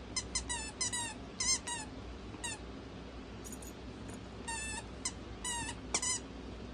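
Squeaker in a plush unicorn dog toy squeaking over and over as a small dog chews it: short, high, wavering squeaks at uneven intervals, some in quick pairs.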